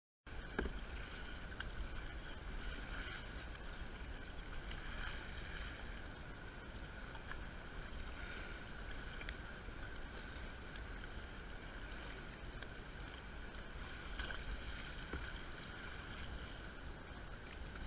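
Water splashing and lapping around a kayak as it is paddled, with a low wind rumble on the microphone. It starts abruptly just after the beginning.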